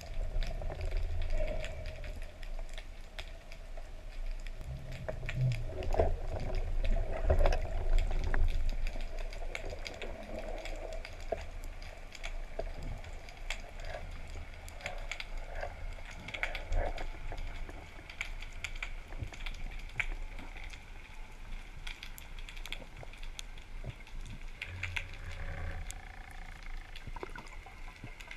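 Underwater ambience picked up by a camera in its waterproof housing: a steady rush of water full of small clicks and crackles, with low rumbling that swells loudest about six to nine seconds in.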